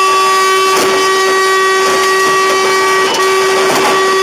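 A vehicle horn held in one long continuous blast, with a brief dip about three seconds in. A few short knocks sound under it.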